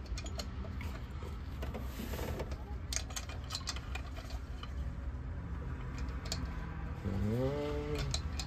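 Light plastic clicks and taps as a new distributor cap is turned and worked down onto a Dodge Magnum distributor, over a low steady background rumble. A short hum of a man's voice comes near the end.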